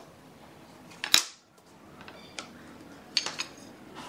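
Wooden strips clacking as they are set down on a plywood panel and knocked against one another: one loud clack about a second in, then a quick run of three clacks just after three seconds in.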